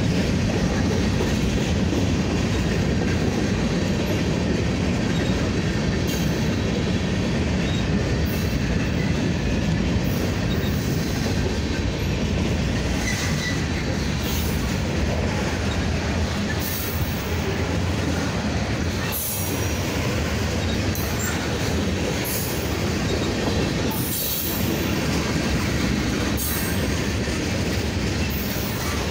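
Freight cars of a slow Union Pacific train rolling past: a steady rumble of steel wheels on the rails, with irregular light clicks every second or two.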